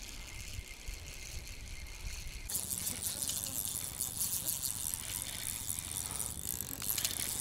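Spinning reel being cranked to retrieve a lure, a dense fast rattle starting about two and a half seconds in. Before it, wind rumbles on the microphone.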